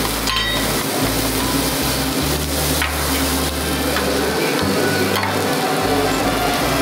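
Food sizzling and frying on a hot cooking surface, with stirring, over a low bass line of background music.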